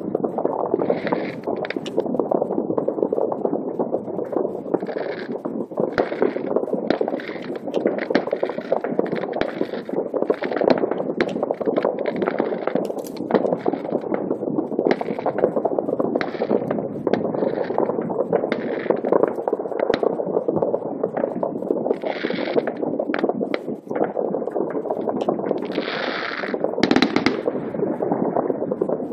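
Many New Year fireworks going off at once over a town, merging into a dense, continuous crackle of overlapping bangs with frequent sharper reports. There are short brighter crackling bursts, the biggest about three seconds before the end.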